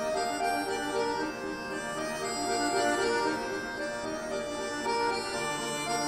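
A duet of two chromatic button accordions playing quick repeated chords over held bass notes.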